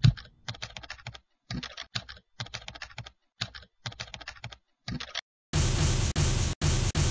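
Computer keyboard typing as a sound effect: rapid keystrokes in short runs with brief pauses. About five and a half seconds in, loud bursts of hissing noise take over, cutting on and off several times.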